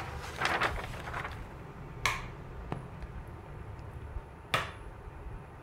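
Two sharp clicks about two and a half seconds apart, with a smaller tick between them, over a faint low hum.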